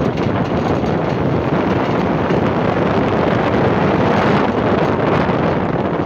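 Steady rush of wind on the microphone from riding in a moving vehicle, mixed with road and traffic noise.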